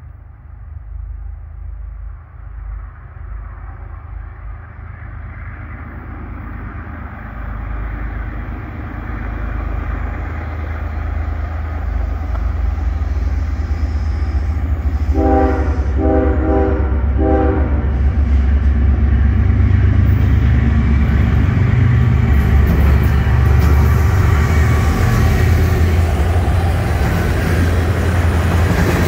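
A Norfolk Southern diesel freight train approaching: a low engine rumble that grows steadily louder, the locomotive horn giving three short blasts about halfway through. Then the locomotives pass at full volume and loaded trash cars roll by with steady wheel-on-rail noise.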